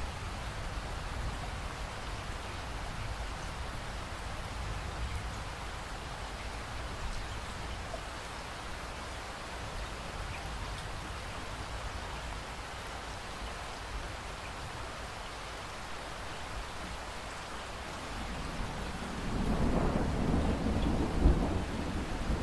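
Steady rain falling, with a low rumble beneath it. About nineteen seconds in, a louder roll of thunder builds and keeps rumbling.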